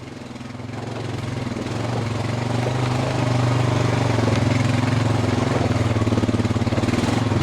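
Honda Rancher ATV's single-cylinder engine running at steady revs with a fast, even pulse. It grows louder over the first three seconds, then holds steady.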